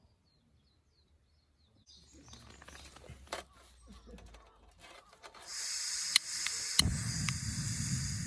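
Cooking over a wood fire: a steady sizzling hiss with sharp crackling pops sets in about five seconds in, after a few quiet seconds of faint bird chirps and light handling clicks.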